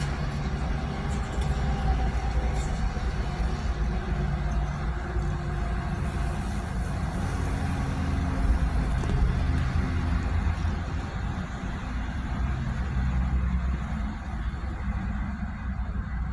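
Road traffic: cars passing one after another, a steady wash of tyre and engine noise with engine hum swelling and fading as each goes by, the loudest pass a little past halfway.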